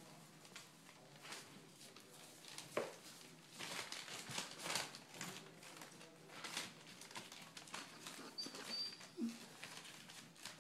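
Berger Picard puppies scuffling and play-wrestling on newspaper and bedding: faint rustling and crinkling with the patter of small paws, and a couple of short squeaks.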